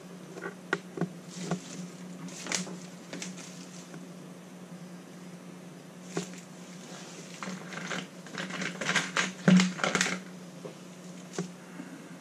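Small clicks and rustling as test leads and an alligator clip are handled and fitted together by hand, busiest a couple of seconds before the end, over a steady low hum.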